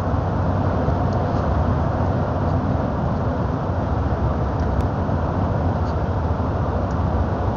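Truck driving at a steady pace, its engine and road noise heard inside the cab as an even low rumble that does not change.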